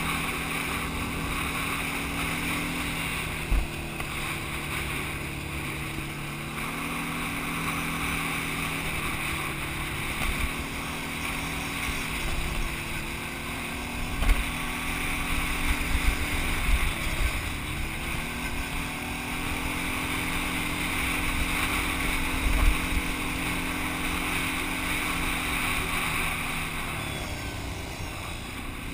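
Quad bike (ATV) engine running under way on a dirt trail, its pitch stepping up and down with the throttle, dropping and climbing again around the middle. A few sharp knocks come through along the way.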